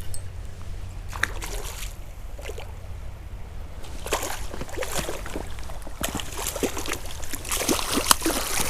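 Hooked brown trout splashing and thrashing in shallow creek water as it is fought and landed, the splashing irregular and growing busier in the second half, over a steady low rumble.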